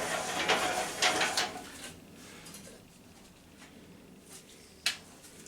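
Objects on a workbench handled and moved about with a clatter and rattle for about two seconds, then quieter rummaging, and a single sharp click near the end.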